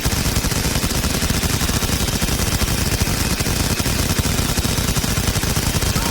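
Automatic machine-gun fire in one long unbroken burst, the shots coming so fast that they run together.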